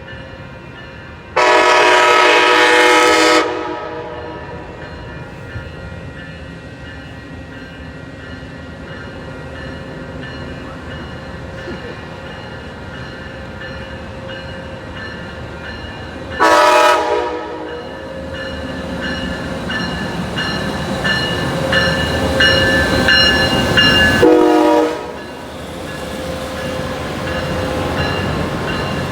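Nathan K5LA five-chime air horn on an SC-44 Charger diesel locomotive (raised-letter version). It sounds one long blast about a second in, a short blast near the middle, and another short blast near the end. Between the last two blasts the train's running noise swells as it draws near and passes.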